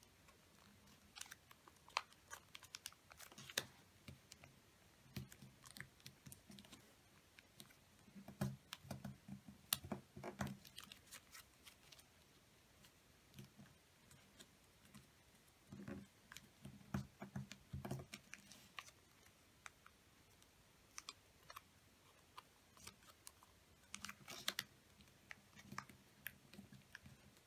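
A sheet of origami paper being folded and creased by hand on a tabletop: faint, irregular crinkles, taps and rubbing, bunched into a few busier stretches.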